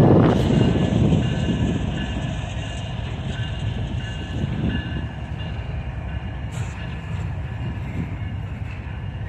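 Double-stack container train of well cars rolling past: a steady rumble of wheels on rail, loudest at the start and easing off, with a faint high ringing tone through it.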